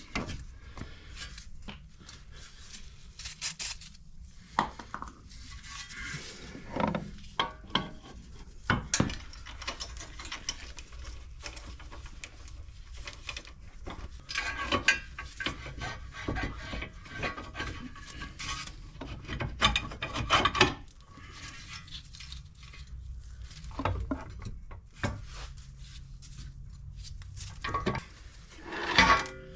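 Metal parts and hand tools being worked, an irregular run of scrapes, clinks and knocks, as a CV axle is fitted on a car.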